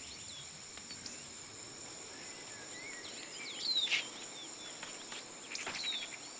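Insects trilling steadily on two high notes, with birds giving short chirps scattered through, busiest about four seconds in and again near six seconds.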